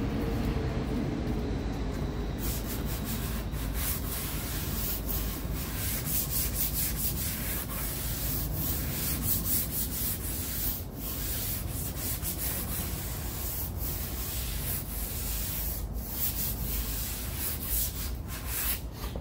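Hand sanding of Bondo body filler on a car's quarter panel: sandpaper on a small hand block scraping back and forth in continuous strokes.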